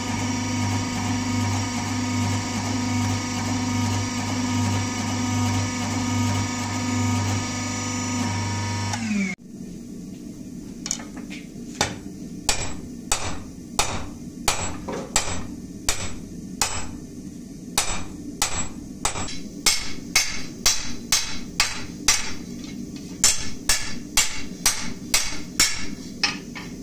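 A forging press runs with a steady mechanical hum, which stops with a falling tone about nine seconds in. Then a hand hammer strikes a red-hot steel bar on an anvil, about two sharp ringing blows a second.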